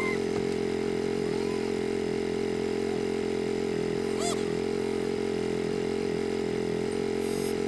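Polaris Ranger utility vehicle's engine running at a steady pitch, with one brief high chirp about four seconds in.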